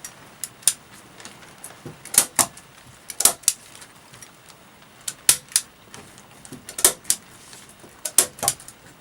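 A run of sharp clicks and knocks at irregular intervals, many coming in quick pairs.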